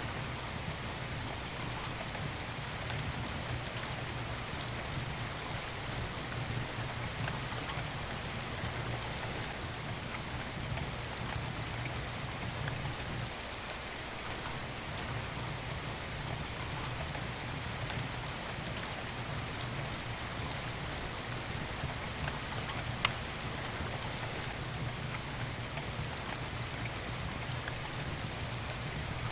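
Steady rain falling, mixed with a wood fire burning in a fireplace; one sharp pop stands out about three-quarters of the way through.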